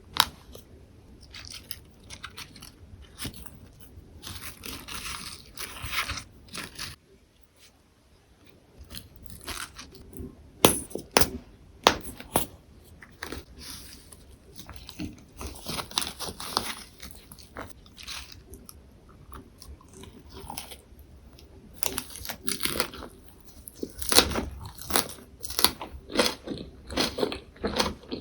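Close-miked biting and chewing of lettuce and perilla-leaf wraps with tofu and gochujang: crisp, irregular crunches of the fresh leaves with wetter chewing between them. There is a short pause about seven seconds in.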